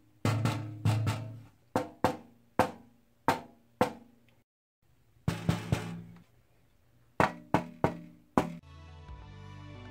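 A hand tapping the sheet-metal doors of a tool cabinet: a series of sharp taps, each ringing briefly, with a pause of about a second near the middle. The first taps are on a bare metal door, the later ones on doors coated with Plasti Dip rubber, which seems to dampen the higher frequencies of the metal's ring.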